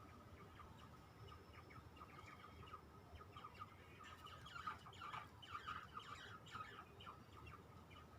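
Grey shrike-thrush nestlings giving faint, quick chirping calls, which grow busier about halfway through.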